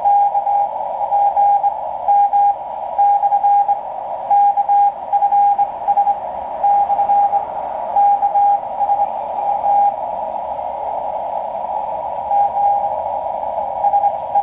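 Morse code (CW) from the coast station KPH received on a shortwave receiver: a single steady tone keyed on and off in dots and dashes over a narrow band of static hiss, with a short pause in the keying about ten seconds in.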